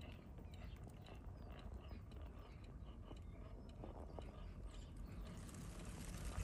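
Faint background noise: a steady low rumble with scattered small clicks and ticks.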